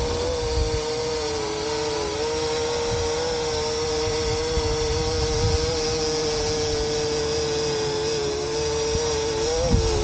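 Parrot Anafi quadcopter hovering, its propellers giving a steady whine whose pitch wavers slightly and rises briefly near the end as the motors hold it against the wind. Wind rumbles on the microphone underneath.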